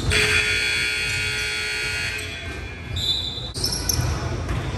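Gym scoreboard buzzer sounding for about two seconds, a steady electric blare with a rich buzzy tone. A short high squeak follows about three seconds in.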